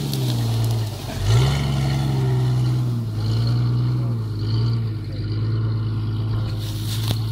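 Jeep Cherokee XJ engine running, its revs rising and falling repeatedly: a dip about a second in, a quick rise, then several gentler swells.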